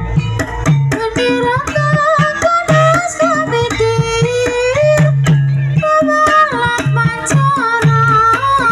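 Javanese gamelan accompaniment for an ebeg dance: many sharp drum strokes over a repeating low pulse, with a melodic line that slides up and down in pitch.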